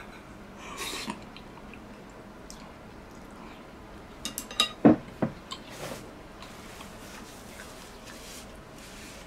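Tableware being handled: a few light clicks, then a louder knock of a dish or bowl about five seconds in and a smaller one just after, with soft brushing sounds between.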